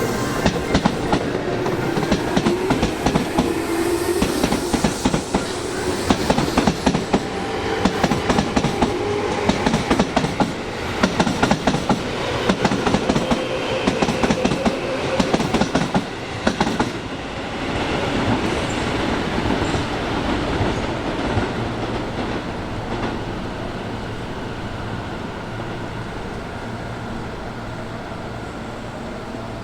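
Electric commuter train running past, its wheels clacking over rail joints in quick runs. The clacking stops about seventeen seconds in, leaving a steady rumble that slowly fades.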